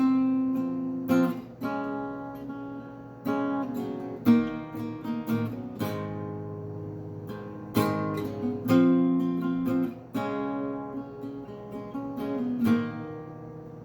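Acoustic guitar strummed in a slow chord pattern, each strum ringing on.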